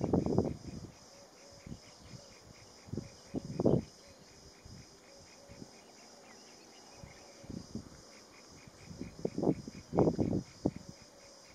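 Insects chirping in a steady high chorus with a fast, even pulse. Loud, irregular low rumbles come and go over it, near the start, a little past the third second, and in a cluster near the end.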